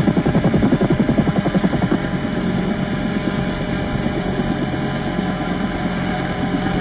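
Large-scale RC Huey helicopter with an onboard sound system, running on the ground with its rotor turning: a fast, even rhythmic thudding that gives way about two seconds in to a steadier hum.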